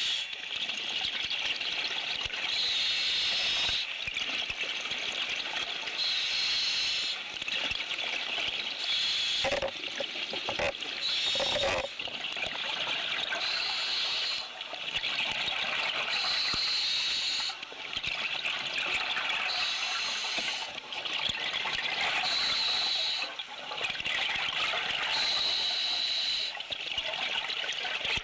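Scuba diver breathing through a regulator: a hiss on each breath and a rush of bubbling on the exhale, repeating about every three seconds.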